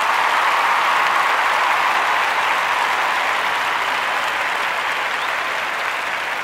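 A crowd applauding with steady clapping that slowly dies down.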